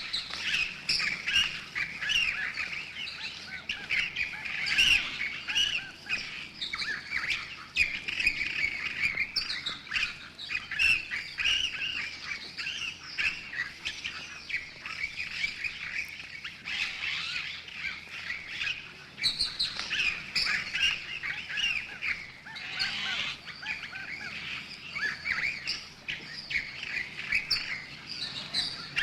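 Many small birds squeaking and chirping at once, a dense, continuous chatter of short high calls.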